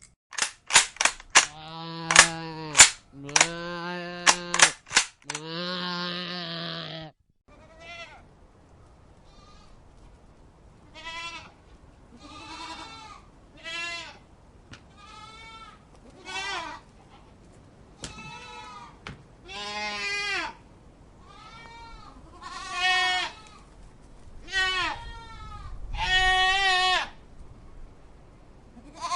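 Goats bleating. For the first seven seconds long, lower bleats repeat with sharp clicks between them. Then a string of shorter, higher, quavering bleats like a young kid's comes every second or two.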